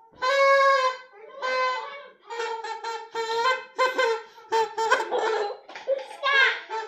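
A party horn blown in a rapid series of short and long blasts, all at one steady, fairly high pitch.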